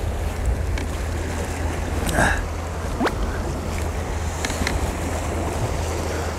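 Steady wash of sea waves against a rocky shore, with wind rumbling on the microphone. A short falling squeak about three seconds in.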